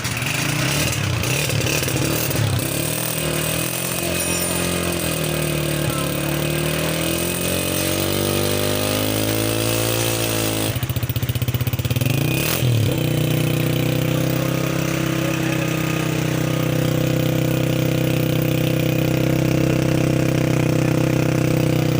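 Honda CG125's single-cylinder four-stroke engine running, its speed drifting slowly up and down. About eleven seconds in, a short, rapid rattle breaks in, then the engine settles into a steady idle.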